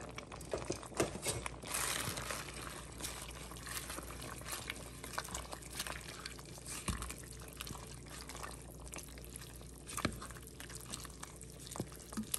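Wooden spoon stirring fresh spinach leaves into a pot of brothy tortellini soup in an enameled Dutch oven: wet sloshing with scattered light knocks of the spoon against the pot.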